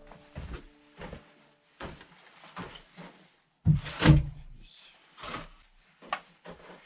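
Irregular wooden knocks and thumps of lumber being handled and set into a cabin floor frame, the two loudest coming about halfway through.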